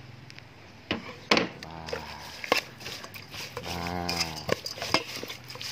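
Metal spoon stirring beef larb and herbs in a metal pot, knocking and clinking against the pot several times. About four seconds in there is a low, drawn-out call just under a second long, with a fainter one near two seconds.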